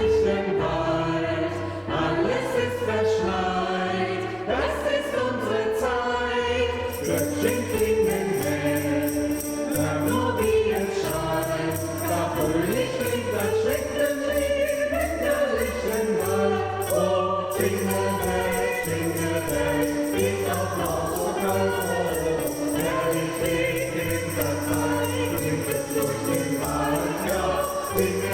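Choir singing a German Christmas song in harmony with instrumental accompaniment. About seven seconds in, sleigh bells join, shaken in a steady beat, with a short break near the middle.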